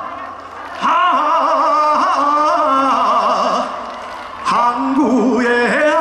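A male voice singing a trot song live through a concert PA, in long held notes with wide vibrato. The singing drops away briefly at the start and again about four seconds in, between phrases.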